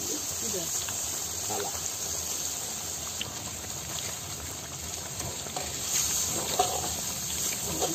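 Chicken curry masala sizzling and bubbling in a large iron karahi over a wood fire, steaming after a little water has been added, while a metal spatula stirs it. Crickets chirp steadily behind it.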